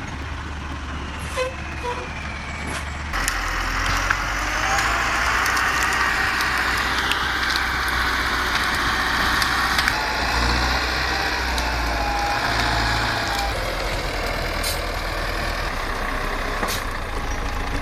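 Heavy truck engine running steadily under load. The sound changes abruptly about three seconds in and gets louder.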